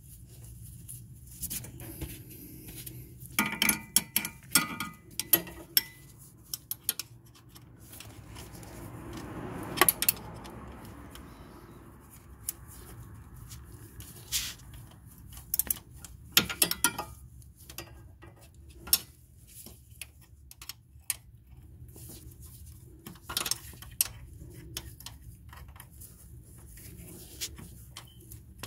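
Hand tools working on a transmission mount bolt: a ratchet and socket extension clicking, with scattered metal-on-metal clinks, a few of them ringing briefly about four seconds in, and a short scrape around nine to eleven seconds in.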